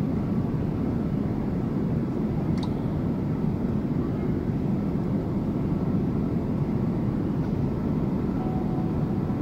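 Steady cabin noise of a Boeing 787-8 Dreamliner in flight: the even, low engine and airflow noise heard from a seat inside the cabin.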